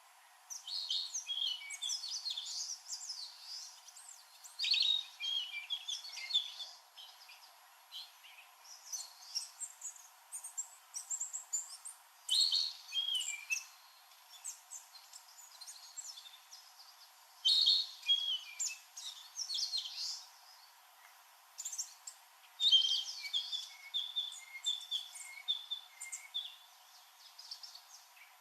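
Male narcissus flycatcher singing: light, flute-like whistled phrases repeated every few seconds, some with a run of evenly repeated notes.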